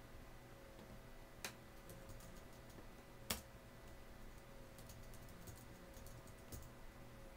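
Quiet room with a steady faint hum, broken by scattered small clicks and ticks; one sharper click comes a little past three seconds in.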